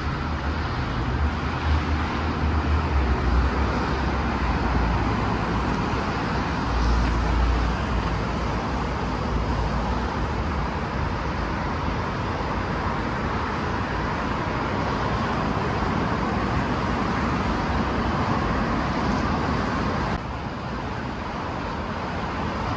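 Steady city road traffic on a busy multi-lane street: a continuous wash of engine and tyre noise, with a deep low rumble swelling twice in the first eight seconds. The overall level drops slightly near the end.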